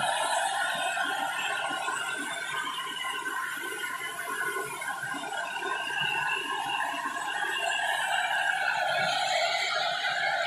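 Natural gas jetting out of a leaking CNG pipeline: a steady hiss with several held whistling tones in it. It dips a little in the middle and swells again near the end.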